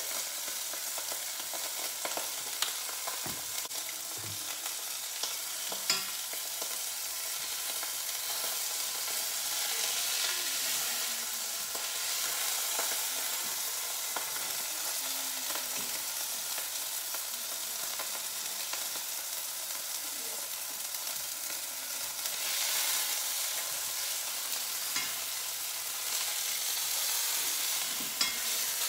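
Seasoned skirt steak searing in hot cooking oil in a stainless steel pot: a steady sizzle that swells a little at times. A few sharp taps cut through it, about six seconds in and near the end.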